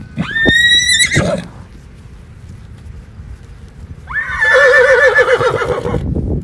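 Horse whinnying twice: a short call that rises and holds about a second, then a longer quavering neigh about four seconds in, lasting some two seconds, with low thuds underneath.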